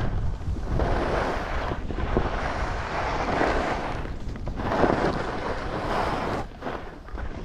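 Wind buffeting the microphone: a constant low rumble with a rushing hiss that swells and fades in several surges.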